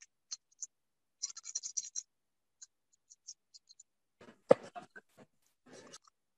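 Clear plastic bag of cake premix crinkling and rustling in short crackly bursts as it is squeezed and shaken to pour the powder into a mixing bowl, with one sharp click about four and a half seconds in.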